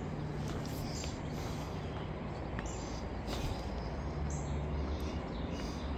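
Outdoor ambience: a steady hiss and low rumble that grows louder about four seconds in, with scattered short high bird chirps.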